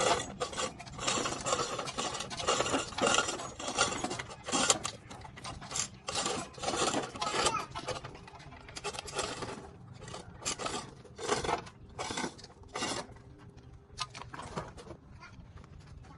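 Irregular hand-worked scraping or rasping strokes, roughly one or two a second, thinning out near the end.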